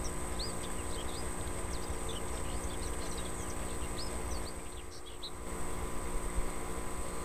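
Small birds chirping in many short, quick rising notes over a steady low rumble and faint hum.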